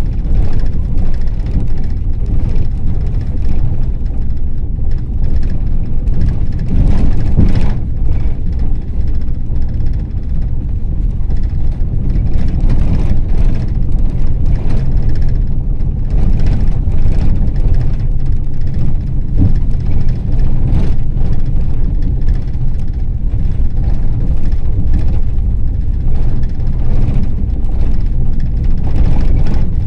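Ford Transit minibus under way, heard from inside the cabin: a steady low engine and road rumble with frequent knocks and rattles as it rides over the road surface, and a louder jolt about seven seconds in.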